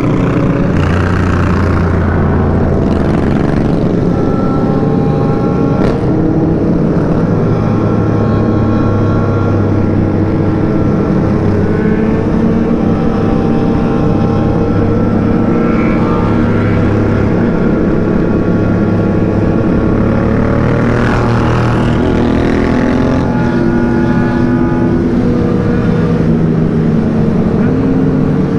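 Sport motorcycle engine running at highway cruising speed, with wind rush and the engines of a large pack of motorcycles riding alongside. The engine note steps up and down a little every few seconds with the throttle.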